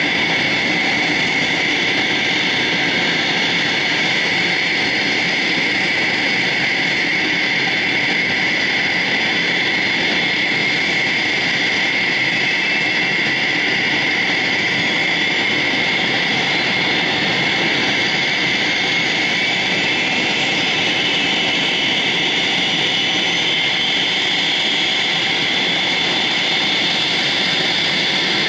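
The Pratt & Whitney Canada JT15D turbofans of a Cessna 550 Citation II running at taxi power. It is a steady jet whine with a strong high tone over a loud rushing noise, holding an even level.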